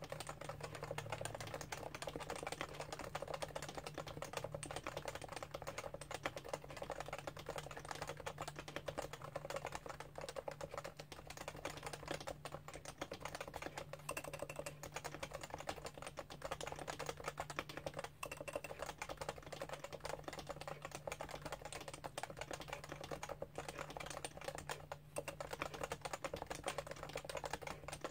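Continuous fast typing on a Realforce R2 keyboard with Topre electro-capacitive switches, a dense stream of soft keystrokes.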